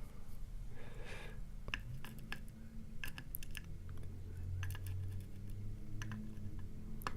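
Irregular light clicks and taps of small brass lock pins, springs and a pick being handled and set down on a hard work surface.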